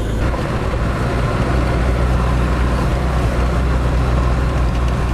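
Van engine idling, a steady low rumble.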